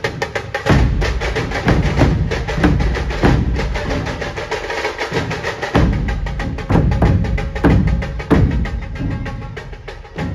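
Dhol-tasha pathak drumming: many large barrel dhol drums played together, with deep booms about once a second over a fast clatter of sharp stick strokes. The volume sags near the end.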